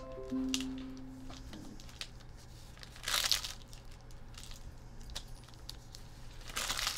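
Plastic trading-card pack wrappers crinkling and tearing as packs are opened, in two short bursts about three and a half seconds apart, with small handling clicks between.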